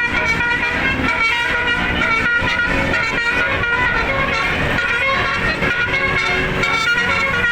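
Telolet basuri musical air horn, a 36-note bus horn, playing a fast run of short notes that change pitch without a break.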